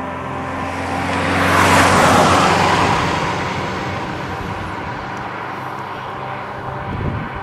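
A car passes close by on an asphalt road. Its tyre and engine noise swells to a peak about two seconds in, then fades as it drives away.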